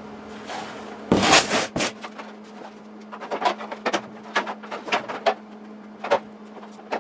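Fiberglass bodywork and its mounting hardware being handled: a loud rustle about a second in and a sharp click, then a run of small clicks and taps, over a steady low hum.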